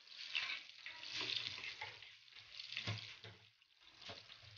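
Chopped onion and garlic sizzling in hot oil in a pan while a metal spoon stirs them. The crackling sizzle swells and falls several times.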